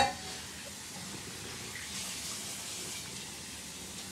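A steady, even hiss, after a short click at the very start.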